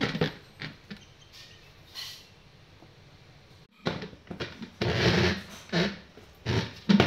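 Cocker spaniel puppy nosing and shoving a plastic stool on a tiled floor: short, noisy bursts of scraping and snuffling. A few come near the start, and a denser, louder run of them comes in the second half.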